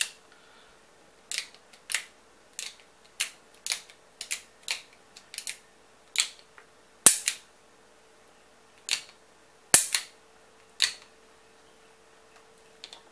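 Smith & Wesson Model 620 revolver's action being worked by hand: about fifteen sharp metallic clicks of the hammer cocking and the trigger dry-firing, irregularly spaced, some in quick pairs, the loudest about seven and ten seconds in. It is a function check of the action after cleaning and reassembly.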